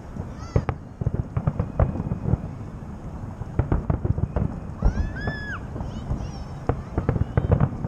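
Festive fireworks salute going off: a dense, irregular run of booms and crackles.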